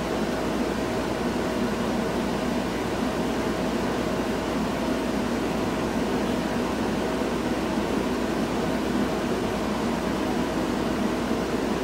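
Steady mechanical hum and hiss with a faint steady tone in it, unchanging throughout.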